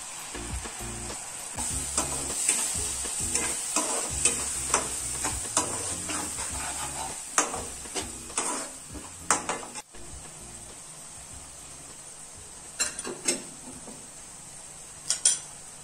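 Tomato puree and fried onions sizzling in a non-stick pan while a spatula stirs and scrapes through them in quick strokes. The stirring stops about ten seconds in, leaving a lower sizzle with a few more strokes near the end.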